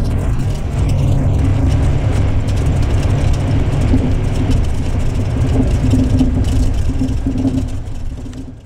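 Bus diesel engine with a modified exhaust running with a steady, deep rumble, fading out near the end.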